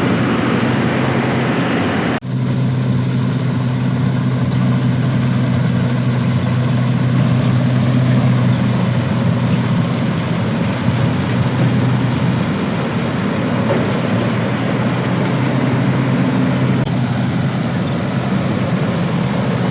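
Combine harvester's diesel engine running steadily at a constant pitch while harvesting wheat, with a brief dropout about two seconds in.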